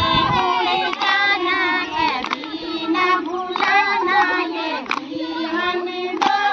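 A group of women singing a devotional bhajan together, clapping their hands along in a steady beat.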